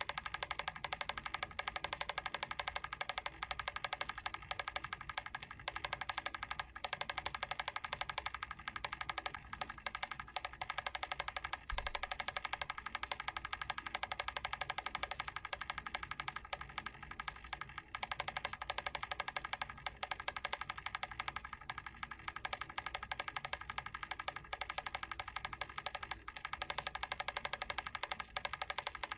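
Mechanical timer switch clicking in a rapid, even, continuous run, with a single brief knock about twelve seconds in.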